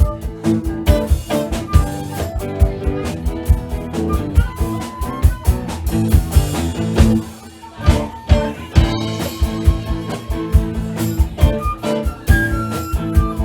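Live band playing an instrumental passage of a song, with sustained notes over a regular drum beat. The music drops briefly about seven seconds in, then comes back in.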